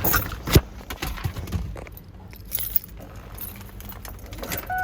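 Car keys jangling with several sharp clicks as the Ford Expedition's keys are handled, the loudest click about half a second in. A steady electronic chime from the vehicle starts just before the end.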